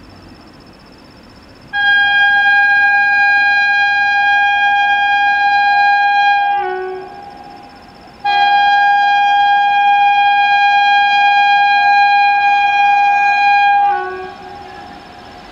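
Indian Railways locomotive horn sounding two long steady blasts of about five seconds each, with a short gap between. The pitch sags briefly as each blast trails off.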